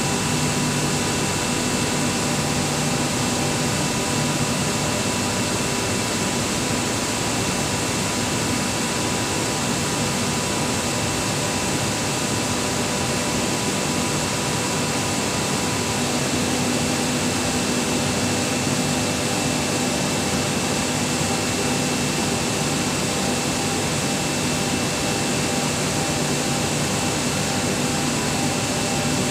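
BK37-8ZG screw air compressor running: a loud, even rush of machine noise with several faint steady tones in it.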